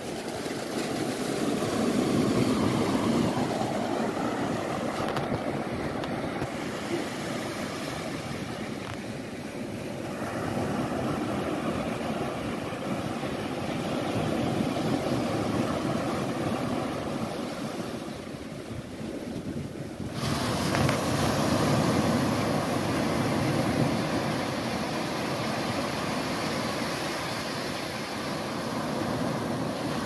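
Ocean waves breaking and washing up on a beach, a steady rush that swells and eases. About twenty seconds in, the rush turns suddenly brighter and hissier.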